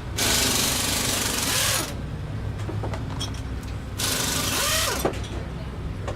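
Sports car engine running with a steady low rumble and a rattly, mechanical quality. Two loud bursts of rushing noise, the first about two seconds long near the start and a shorter one about four seconds in, rise over it.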